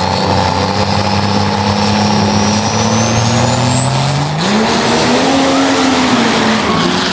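Diesel drag-racing pickup's engine running hard at the start line, its note and a high whistle creeping steadily higher as it builds up. About four seconds in, the engine note jumps up sharply as the truck launches, then rises and falls away again near the end.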